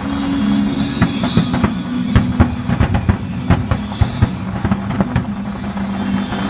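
Fireworks going off in many quick, irregular bangs and crackles over loud music with sustained low tones.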